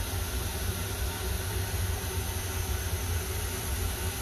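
Haas UMC 500SS five-axis CNC machining centre running between cutting operations: a steady low hum with an even hiss over it.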